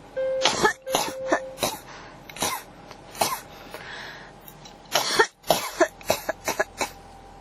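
A person coughing in fits. A cluster of coughs comes in the first second and a half, then two single coughs and a drawn breath, then a quick run of about seven coughs near the end.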